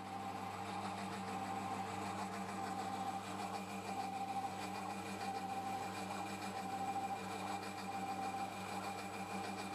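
Metal lathe running as it turns a metal workpiece: a steady machine hum with a slow, even pulsing.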